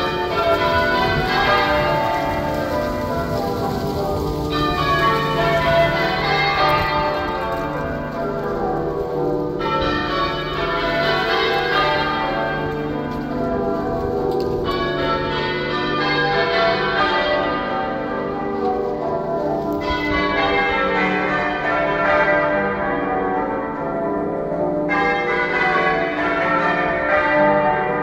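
Cathedral bells change ringing half-muffled, so that one full round of strokes rings out clear and the next comes back dull, alternating about every five seconds: the traditional sound of mourning and remembrance.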